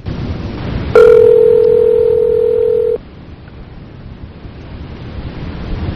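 Telephone ringback tone heard over the phone line: one steady ring about two seconds long, then hissing line noise while the phone rings at the other end.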